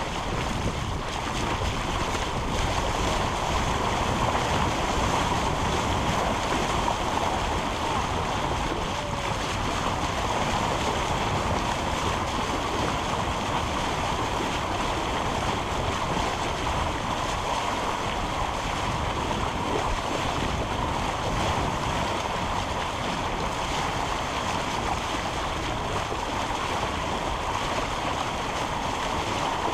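Steady rush of wind and waves around a sailing yacht under way, with wind buffeting the microphone.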